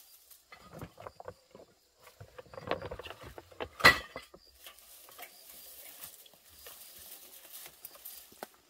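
Dry straw rustling and crackling as a bundle of it is pulled from a stack and gathered up by hand, with a sharp knock about four seconds in.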